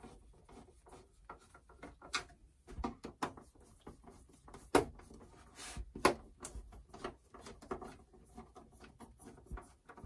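Irregular light clicks and knocks of a screwdriver and hands on the plastic back case of an HP Pavilion 23 all-in-one computer as its screws are tightened, the loudest knock about five seconds in.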